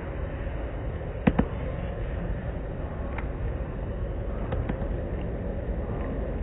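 Automatic tunnel car wash heard from inside the car: a steady rushing din of the wash machinery and water, with two sharp knocks about a second in and a few fainter ticks later.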